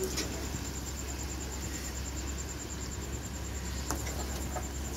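Faint steady sizzle and hiss from a hot wok of chicken karahi, over a constant low hum, with a couple of light clicks as pieces are served onto a plate.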